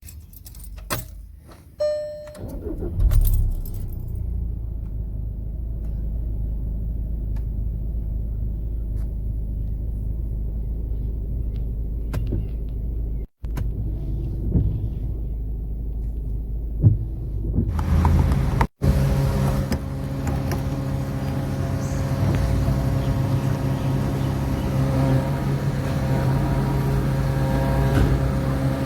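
Keys jangling, then a car engine running steadily with a low rumble. About eighteen seconds in the sound changes to a fuller, steady engine hum with more road noise.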